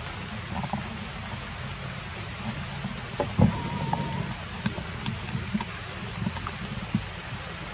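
Light rain on forest foliage: a steady patter with scattered drips and light ticks, and a sharper tap about halfway through.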